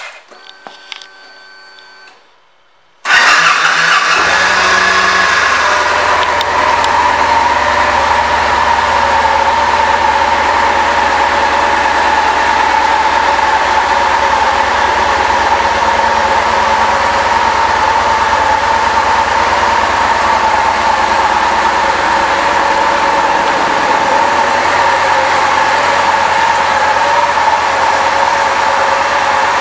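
The 2009 Victory Vision Tour Premium's Freedom 106 V-twin engine starts suddenly about three seconds in, after the ignition is switched on. It settles within a few seconds into a steady idle.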